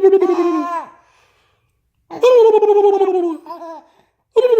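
A young child with the hiccups giggling in high, pulsing bursts of laughter that fall in pitch. The bursts come about every two seconds with short silences between them.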